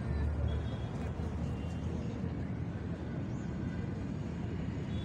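Steady low rumble of city traffic, with a few faint, short high chirps over it.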